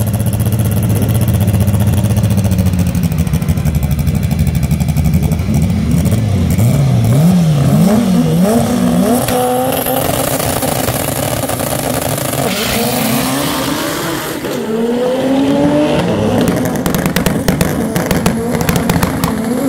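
Honda Civic hatchback drag car's engine at the start line: it holds a steady rev, then the revs swing up and down about twice a second. Roughly two-thirds of the way in it launches, and the pitch climbs and drops back with each gear change as it pulls away, with a crackle running through it.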